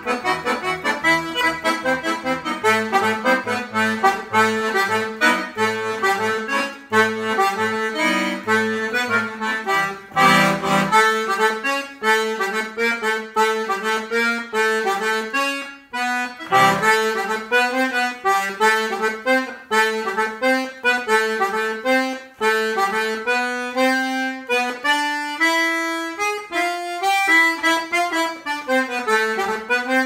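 Bertrand Gaillard Irish button accordion (button box) playing a tune: a melody on the treble buttons, with bass notes pulsing underneath for about the first nine seconds. After a short full chord, the melody carries on alone with short breaks.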